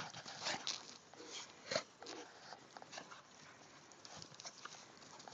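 Two dogs, a large brindle dog and a small white terrier-type dog, play-wrestling on grass: a few short, sharp dog sounds and scuffles in the first two seconds, then fainter scattered ones.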